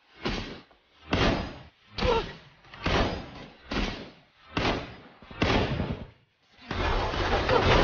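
Bamboo sleeping mat clattering as it is pushed into a roll across a bed, in a series of short bursts about one a second, then a longer unbroken stretch of rolling near the end.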